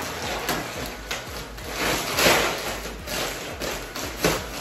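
Several light knocks and bumps over a steady rustling noise, the sound of objects being handled.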